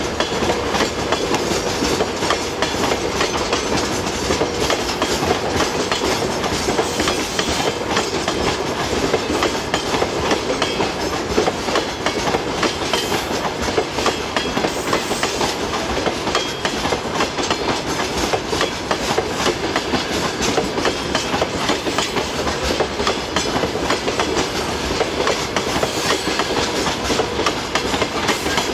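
Loaded freight train of open coal wagons rolling past at speed: steady wheel clatter over the rail joints in a continuous rumble.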